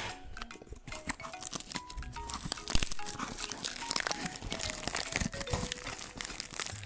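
Plastic packaging on a cardboard parcel crinkling and tearing as it is worked open by hand, in many short crackles, over a simple background melody.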